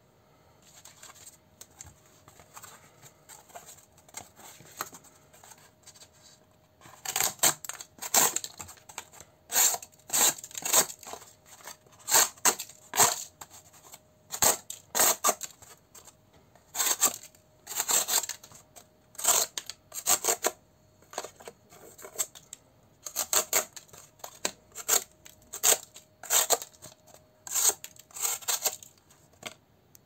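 Knife blade slicing through corrugated cardboard: a string of loud, scratchy cutting strokes, about one or two a second, starting about seven seconds in after a few softer handling sounds.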